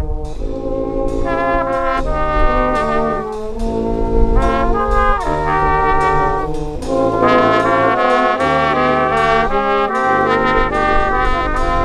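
Brass band of trumpet, French horn, baritone horns and tuba playing a tune in harmony, with held chords that change from note to note over a tuba bass line.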